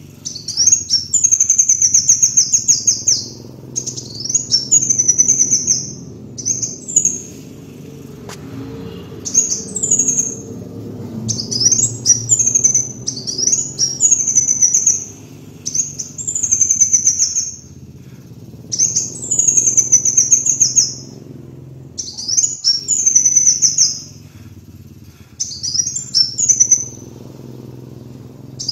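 Kolibri wulung sunbird singing: high-pitched, fast trilling phrases of one to three seconds, repeated over and over with short pauses between them, over a steady low background hum.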